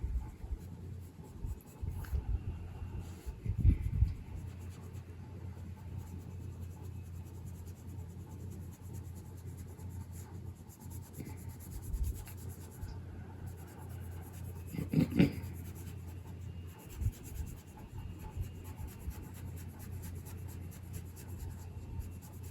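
Coloured pencil scratching and rubbing on paper in steady strokes, with a couple of low thumps, one about four seconds in and one about fifteen seconds in.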